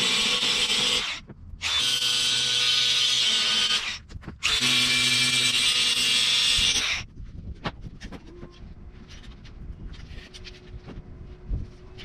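DeWalt grinder grinding a steel tractor loader bucket down to bare metal for welding, in three runs broken by short pauses. It stops about seven seconds in, leaving faint knocks and clicks.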